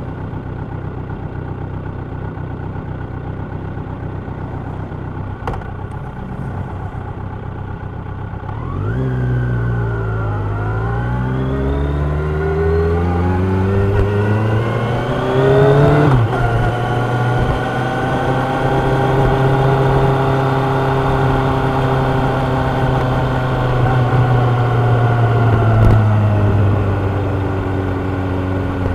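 Kawasaki Ninja 1000's inline-four engine and exhaust: a steady low running note, then about nine seconds in it pulls away and revs up with rising pitch, drops in pitch at a gear change about sixteen seconds in, and settles into a louder steady cruise that eases off slightly near the end.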